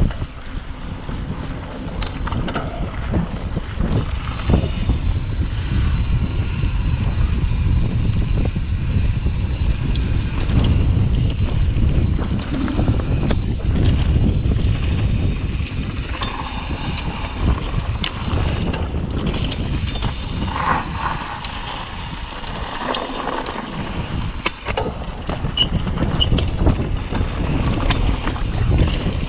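Mountain bike ridden along a dirt and gravel trail: wind rushing over the action camera's microphone, tyres rolling over the dirt, and the bike rattling with frequent sharp knocks.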